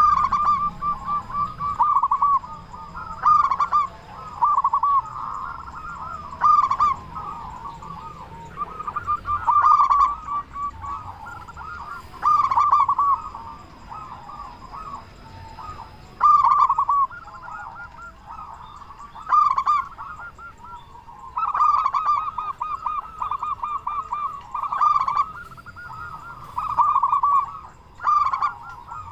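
Zebra dove (perkutut) cooing: rolling, trilled phrases repeated over and over with short pauses between.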